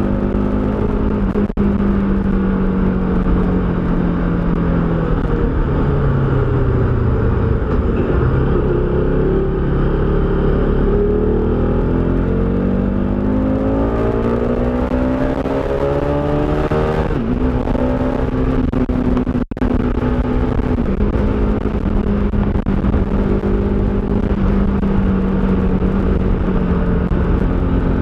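Motorcycle engine running on the move, its pitch sinking as it slows and then climbing again as it speeds back up before holding steady, with wind rushing over the microphone. The sound briefly drops out twice.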